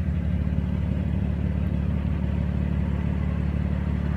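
A car engine idling: a steady low rumble with a fast, even pulse.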